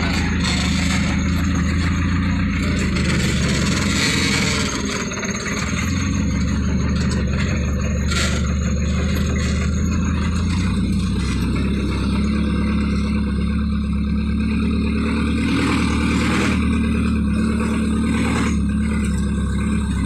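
A vehicle's engine runs steadily, heard from inside the cab while it drives slowly along a rough dirt road.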